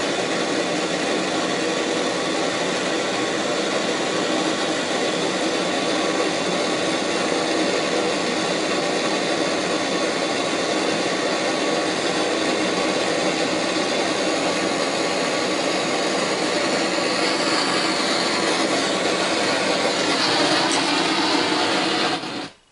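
Gas blowtorch flame running steadily while it heats a brass fuel tank for soft soldering, then shut off suddenly near the end.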